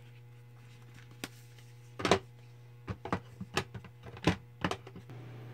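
Makeup compacts and plastic cases clicking and knocking as they are handled and set down: a run of sharp clicks, with louder knocks about two seconds in and again a little after four seconds, over a steady low electrical hum.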